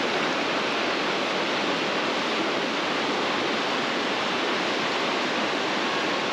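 River whitewater rapids rushing steadily, a continuous even wash of moving water.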